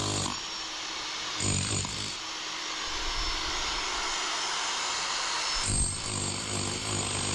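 Demolition hammer drill on hammer-only mode with a flat bit, chiselling out the 8-inch concrete between a ring of drill holes. It runs in bursts: it stops just after the start, runs briefly about a second and a half in, and starts again near six seconds, over a steady hiss.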